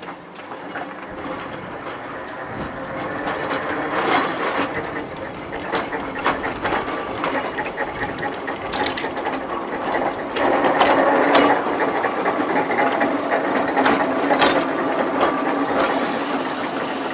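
Narrow-gauge electric tram running slowly past, its steel wheels clicking and clanking on the rails with a steady rumble. The sound builds as it draws near and is loudest about ten to twelve seconds in.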